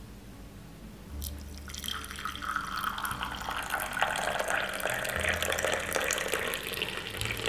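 Hot milky tea poured in a thin stream into a ceramic mug, splashing as the cup fills. The pour starts about a second in and grows fuller as it goes on.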